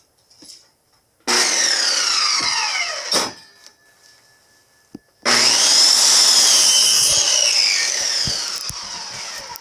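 Handheld electric circular saw run twice, first for about two seconds and then for about four, cutting off the end of a 2x4 board. Its whine falls away at the end of each run.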